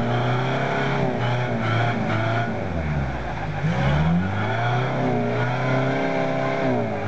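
1993 Toyota Hilux engine revving under load as the ute is driven through a deep mud bog. The revs sag sharply about three seconds in, then climb again.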